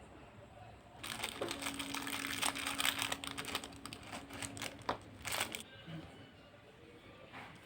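Crinkling, rustling handling noise with many quick clicks, lasting about four and a half seconds, with a faint steady hum underneath through the middle.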